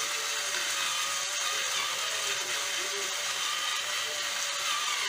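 Stainless-steel spice mill being twisted by hand, its grinder rasping steadily, over the sizzle of onions frying in oil.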